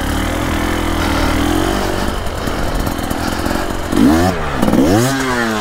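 Dirt bike engine working hard in deep mud, its note wavering, then two sharp blips of the throttle about four and five seconds in, each rising and falling back, as the bike bogs down.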